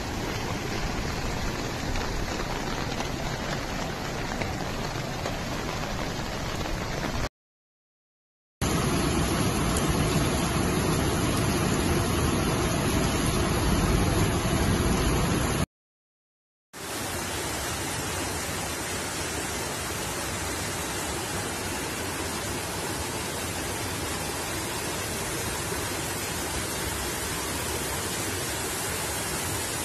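Torrent of muddy floodwater rushing down a street, a steady dense rush of water. It drops out completely for about a second twice, and the middle stretch is louder.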